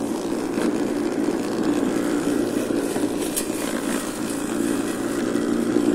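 Homemade electric robot mower running steadily as it cuts grass: a 120 W 24 V scooter motor spins a brushcutter blade, making a continuous hum. There is one brief click about three and a half seconds in.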